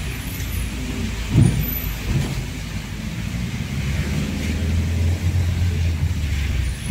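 Car engine and road noise heard from inside the cabin while driving slowly, a steady low rumble with a brief thump about a second and a half in.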